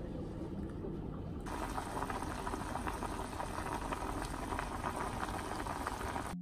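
Pot of instant ramen noodles with a cracked egg boiling on the stove: a steady bubbling hiss that comes in about a second and a half in, after a quieter stretch with a few faint clicks.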